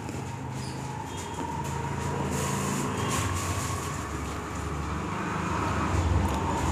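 A low, steady mechanical rumble, like an engine running, that grows slowly louder toward the end.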